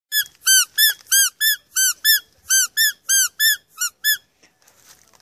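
Rubber squeaky dog toy squeezed over and over, about a dozen quick high squeaks, each rising and falling in pitch, about three a second, stopping about four seconds in.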